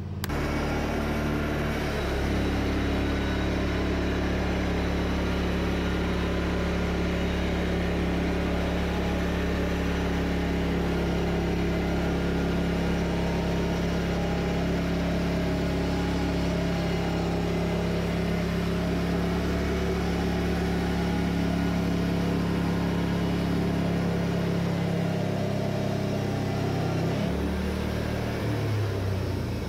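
Wood-Mizer portable band sawmill running steadily under load as its band blade cuts through two cedar cants, making boards. Near the end the engine note shifts and wavers as the cut finishes.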